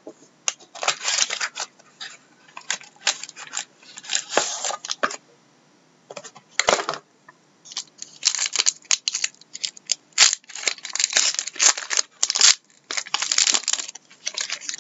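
Plastic shrink wrap crinkling and tearing as a sealed trading-card box is unwrapped and opened, in irregular crackly bursts. Near the end a foil card pack crinkles as it is torn open.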